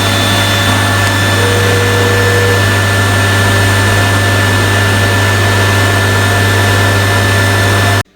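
A tap running hard on a pump-boosted water supply, with the steady hum of a Monsoon booster pump motor. It starts suddenly and cuts off abruptly near the end.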